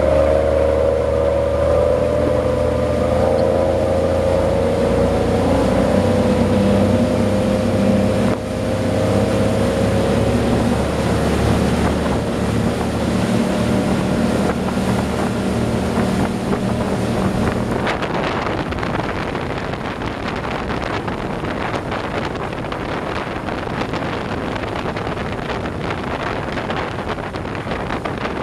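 Yamaha DY-45 boat running fast: a steady engine drone over the rush of the wake and wind. About two-thirds through, the engine tone fades and a rushing noise of wind and spray along the hull takes over.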